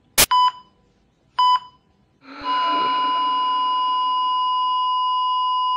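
Hospital heart monitor beeping twice, about a second apart, then a little over two seconds in a continuous unbroken tone: the flatline that signals the patient's heart has stopped.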